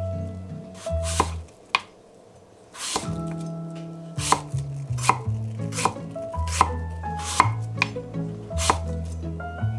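Kitchen knife slicing apple quarters on a wooden cutting board: about a dozen cuts, each ending in a knock of the blade on the board, irregularly spaced, with a short pause about two seconds in.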